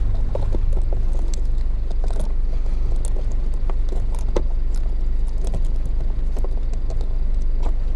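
Scattered small clicks, knocks and scrapes of hands working a plastic cabin filter and its housing behind a car's glove box, over a steady low rumble.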